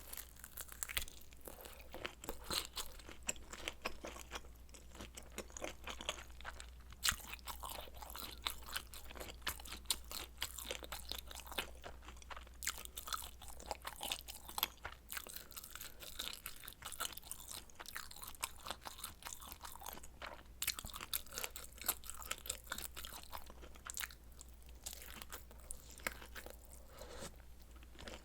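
Close-miked eating sounds: a person chewing and biting food, with many quick, irregular crunches and clicks, over a faint low hum.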